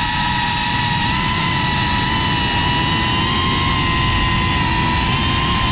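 FPV quadcopter's brushless motors and propellers whining at a steady high pitch that rises slightly about a second and a half in, over a low rushing of air.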